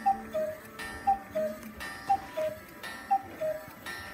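Black Forest cuckoo clock striking ten o'clock: its two-note cuckoo call, a higher note then a lower one, repeating about once a second, with a faint click from the mechanism before each call.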